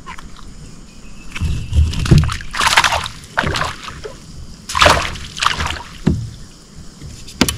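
Water splashing and sloshing around a kayak: two loud splashes about two seconds apart, with dull knocks before them and a sharp click near the end.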